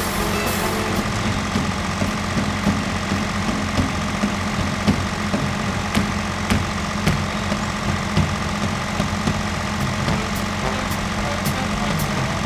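Heavy diesel construction machinery idling steadily, a low even engine hum with a few faint clicks over it.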